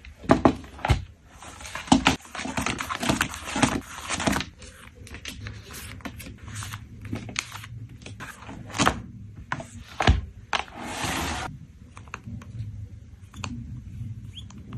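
Photocards and plastic packaging being handled and packed: crinkling and rustling of plastic, with sharp taps and clicks as items are set down. Two longer stretches of crinkling, one near the start and a shorter one about eleven seconds in.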